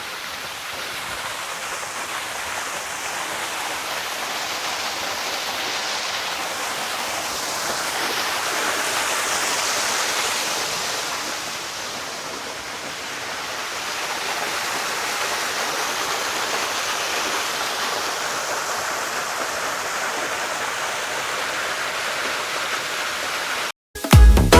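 Waterfall running low, water falling and splashing over rock in a steady rush that swells a little about ten seconds in, eases, then swells again; it cuts off abruptly near the end.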